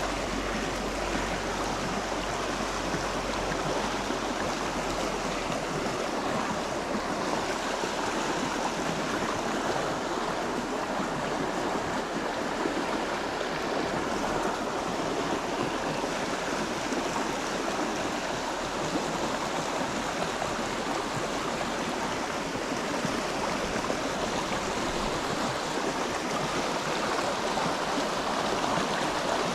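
Creek water rushing steadily, an even wash of flowing water.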